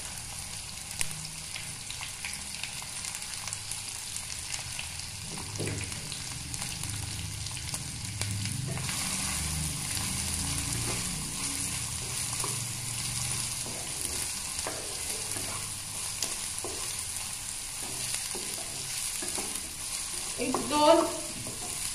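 Chopped okra sizzling in hot oil in a kadai, a steady hiss, with the scrape and knock of a spatula stirring it round the pan.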